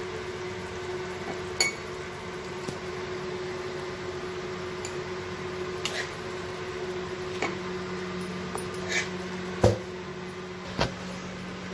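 A serving spoon clinking and knocking against the pan and a glass bowl as paneer curry is spooned out: about eight short, sharp clinks spread out, the loudest near the end. A steady hum runs underneath.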